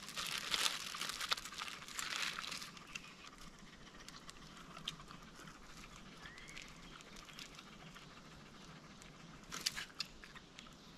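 Crinkling, rustling noise, busiest in the first two to three seconds, then fainter rustling with scattered clicks and a short burst of clicks near the end.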